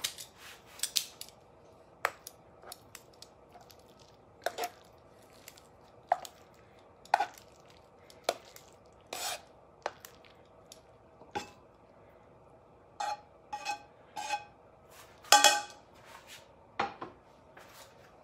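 Metal tongs clinking and scraping against a skillet and serving bowl while pasta is lifted out and served: separate sharp clinks about once a second, then a quicker, louder run of clatters near the end.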